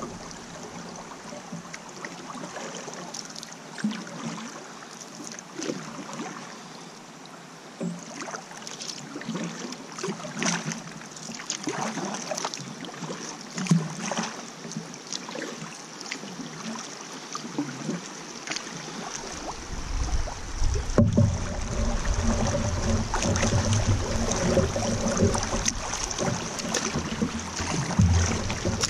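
Canoe paddle strokes through river water: repeated dips, pulls and drips, with the moving water around the canoe. About two-thirds of the way in, a louder low rushing comes in and stays.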